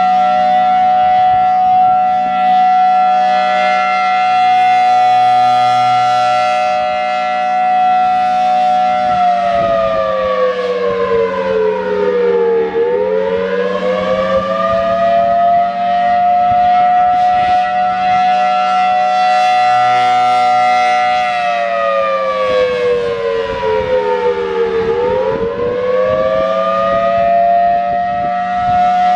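Federal Signal Thunderbolt 1003A supercharged dual-tone warning siren sounding the attack signal. It holds a steady high two-note wail, then twice sags in pitch and climbs back, about twelve seconds apart.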